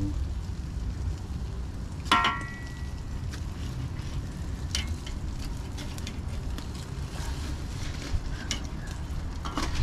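Fish grilling, with faint sizzling and scattered small crackles over a steady low rumble. About two seconds in comes one sharp metallic clink that rings briefly.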